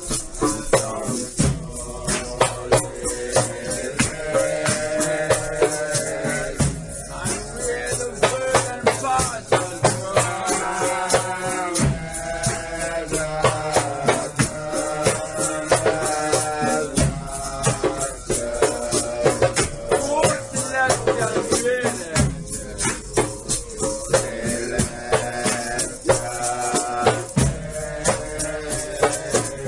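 Nyahbinghi chanting: a group of voices singing a hymn over steady hand-drum strokes and a shaker rattle.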